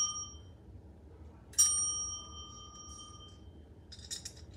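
Chrome service bell (desk bell) ringing. The first ding dies away quickly, cut short by a hand held on the dome. Then a single clear ding about a second and a half in rings out for about a second and a half, with light handling clicks near the end.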